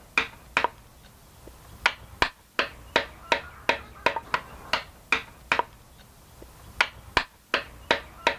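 Mallet striking a carving gouge into wood: sharp knocks in runs of about two to three a second, with short pauses between runs.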